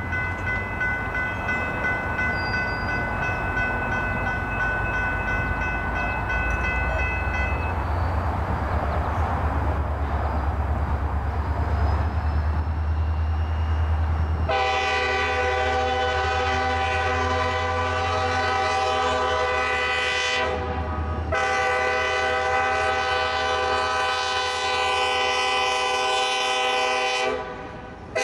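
Norfolk Southern diesel freight locomotive approaching under the low rumble of its engine, then sounding its multi-chime air horn in two long blasts about halfway through, separated by a brief gap: the grade-crossing warning. A fainter steady horn note fades out about a quarter of the way in.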